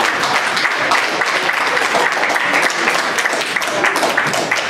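Audience applauding, with many hands clapping continuously.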